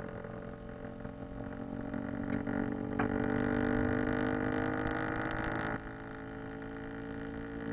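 An engine running steadily, its pitch rising slowly; it grows louder about three seconds in and drops back abruptly near six seconds.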